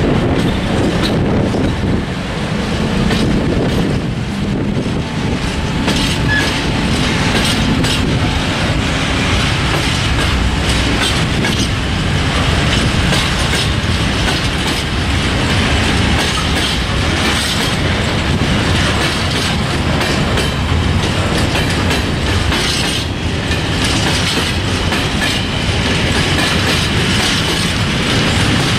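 Long train of high-sided open freight wagons rolling past close by: a steady loud rumble with wheels clicking and clattering over rail joints throughout. A faint wheel squeal rises in places.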